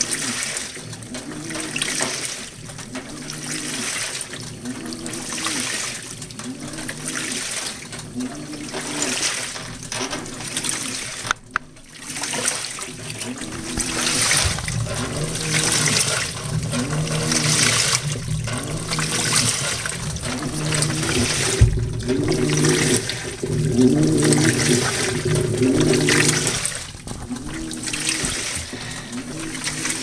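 2012 LG WaveForce top-load washer agitating a load of towels and socks in water on its Heavy Duty cycle: the water sloshes and swishes in surges about once a second as the wash plate drives the load back and forth, with a low hum that rises and falls with each stroke.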